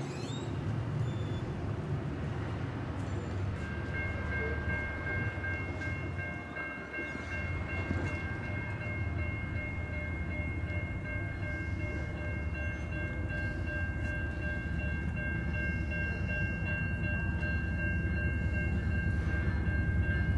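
Diesel-hauled freight train approaching at low speed on street track, its locomotive's engine rumble growing louder. From about four seconds in, a high steady warning tone of three pitches sounds together and holds.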